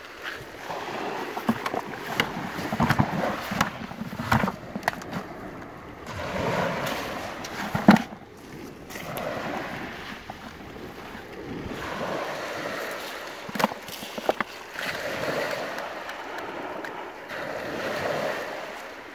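Waves washing over a shingle beach, a hiss that swells and fades every few seconds. Scattered sharp clicks and knocks sound close by, the loudest about eight seconds in.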